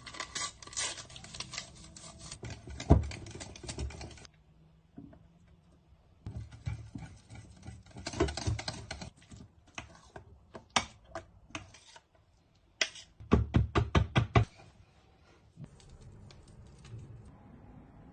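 Irregular clicking and tapping in several bursts, ending with a quick run of about eight knocks, roughly seven a second, a little before the end.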